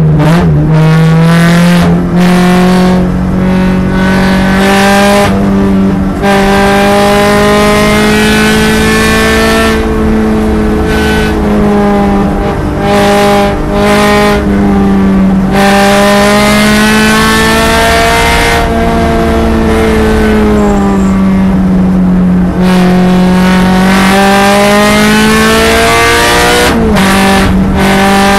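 2013 Subaru BRZ's 2.0-litre flat-four engine heard from inside the cabin while driven hard on track, its pitch climbing and falling with the corners. There is a quick gear change near the end.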